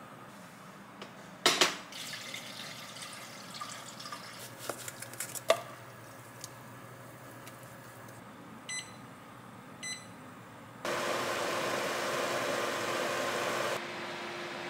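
Light clatter and a few sharp knocks as baking soda is shaken from a plastic shaker into the cast-iron pot of water. Then two short beeps from the Vermicular Rice Pot heater's control panel, about a second apart, and a steady hum starts under a rushing noise for about three seconds as the heater switches on.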